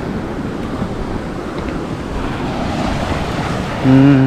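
Small waves breaking and washing up a sandy beach, with wind buffeting the microphone. In the last half-second a short low hum cuts in, louder than the surf.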